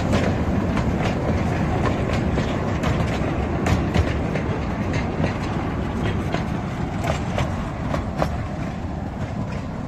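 Small museum toy train running past on its track: a steady rumble with irregular clicks from the wheels on the rails, slowly fading towards the end.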